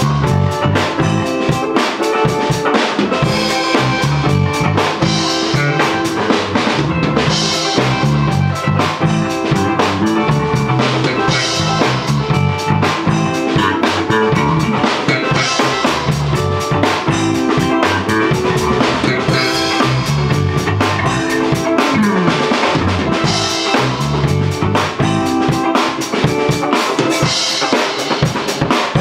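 Drum kit and electric bass playing a steady groove together, the drums keeping a busy beat over a walking bass line.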